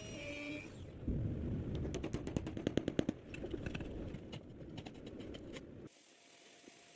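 Metalworking on the old dagger: a rushing noise starts about a second in, with a rapid run of sharp clattering ticks and knocks. It stops abruptly about a second before the end.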